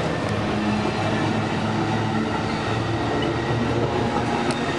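Amtrak passenger train pulling out, its F59PHI diesel locomotive running with a steady low drone over the rumble of the cars on the rails.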